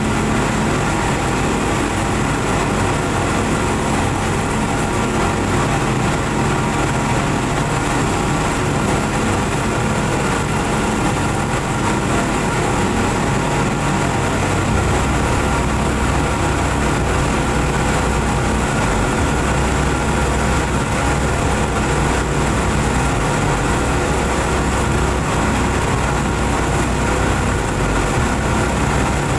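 Four Suzuki 200 hp outboard motors running steadily at cruising speed, a continuous engine drone with the rush of the boat's wake.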